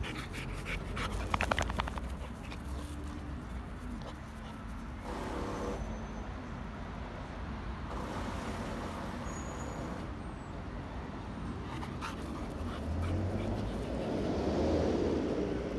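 Yellow Labrador nosing and chewing at grass and panting, with clicks from its mouth early on. A steady low rumble runs underneath and swells near the end.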